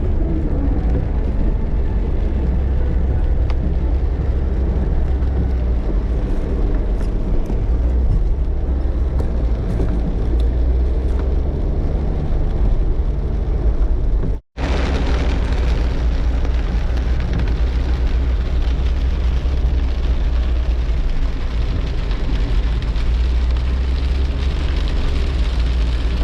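Steady, loud rush of a swollen river, with a deep rumble of wind on the microphone. After a break about halfway through, the hiss turns brighter, with rain added to the water noise.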